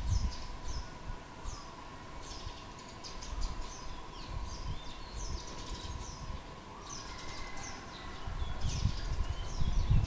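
Small wild birds chirping: many short, high chirps that slide downward, one after another, over a faint steady hum. A low rumble rises near the end.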